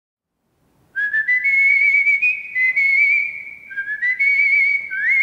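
A man whistling a slow air by mouth, starting about a second in: long held notes with a wavering vibrato, a few notes slid up into.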